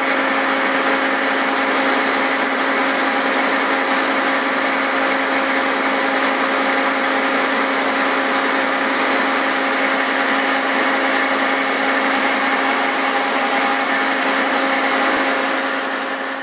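Cincinnati horizontal milling machine cutting splines into a 4340 steel axle shaft with a form cutter: a steady, unbroken machine whir with a constant hum running under it, fading out at the very end.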